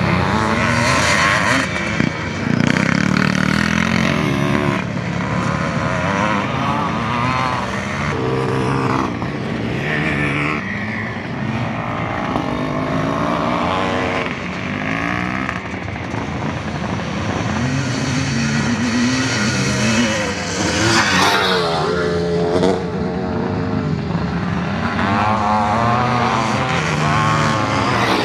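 Classic motocross motorcycles racing, their engines revving up and down as riders pass, with more than one bike heard at once at times.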